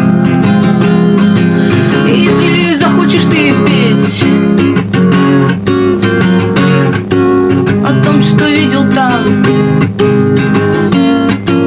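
Acoustic guitar strummed in a steady rhythm, with a young woman's voice singing over it in a couple of phrases. A lo-fi dictaphone home recording.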